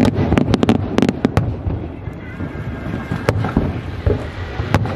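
Aerial fireworks shells bursting: a rapid cluster of sharp bangs and crackles in the first second and a half, then single bangs about three seconds in and near the end, over a steady low rumble.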